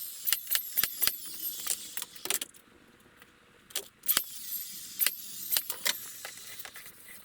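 Irregular sharp metallic clicks and clinks, several a second, with a short quiet gap about two and a half seconds in: small metal parts knocking together.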